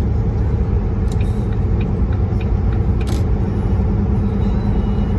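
Semi-truck engine and road noise at highway speed, a steady low rumble heard from inside the cab. A few short clicks come about a second and three seconds in.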